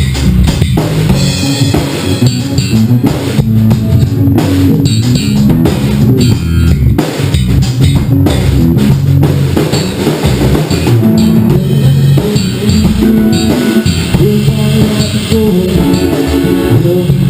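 A band playing loud music at a sound check: drum kit with bass drum, and electric guitar.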